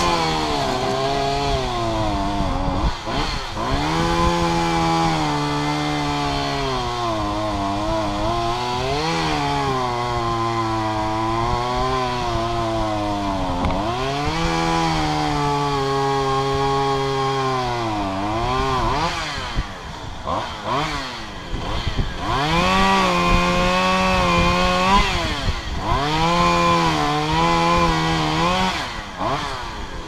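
Chainsaw running at working revs, its pitch rising and falling as it is pushed into the wood; the revs sag briefly about twenty seconds in, then run higher and steadier near the end.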